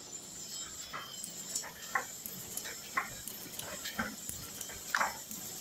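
Four-colour printing machine running, with a short, sharp sound repeating about once a second and a fainter one in between each, over a faint steady hiss.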